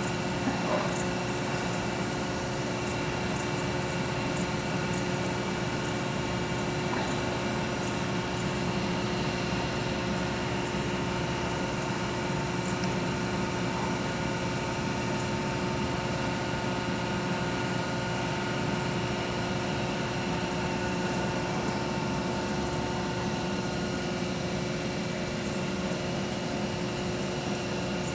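A steady machine hum with several constant tones layered over a low rumble, unchanging throughout.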